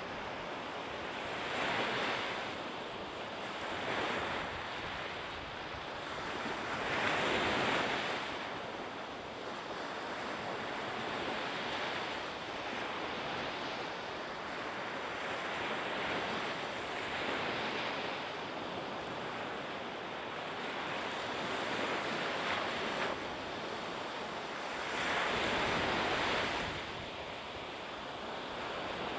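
Steady rushing of sea waves and wind, swelling louder now and then, most strongly about 7 seconds in and near the end.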